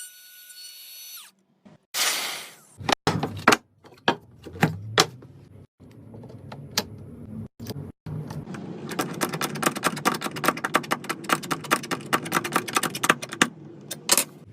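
Workshop tool noises: scattered sharp knocks and clicks, then a run of rapid ticking over a low hum from about nine seconds in.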